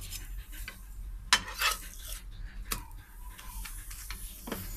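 A metal spatula scrapes and taps on a nonstick pan as it presses and turns a paratha frying in ghee. Sharp clinks come about every second and a half over a light sizzle.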